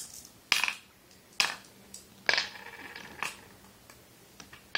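Flat glass stones dropped one at a time into the pits of a wooden mancala board, clacking against the wood and the other stones: four sharp clicks about a second apart, then a few fainter ones near the end.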